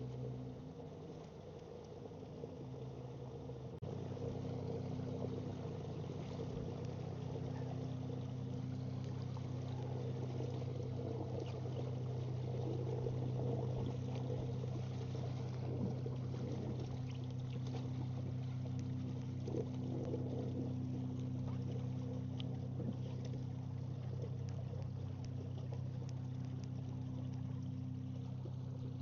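A boat motor running steadily with a low hum, stepping up louder about four seconds in, with light water sounds along the hull.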